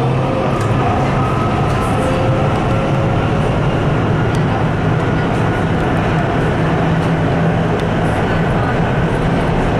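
Nuremberg U-Bahn train running through a tunnel, heard from inside the car: a steady rumble with a faint whine above it.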